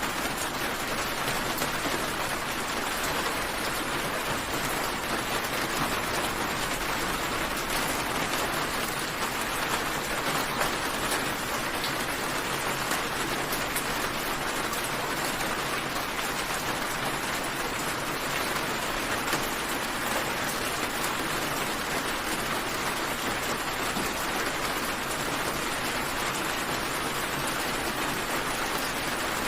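Steady rain falling, with many small drop hits in an even, unbroken hiss.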